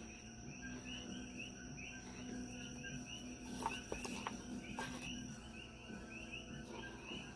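Crickets chirping steadily in the background, about three short chirps a second, with a few light clicks near the middle.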